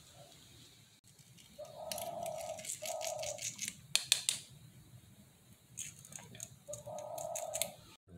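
Light metallic clicks and rattles from handling the small brake-caliper bleed screw and hand tools, in two bursts, the loudest clink a little before halfway. Doves coo three times in the background.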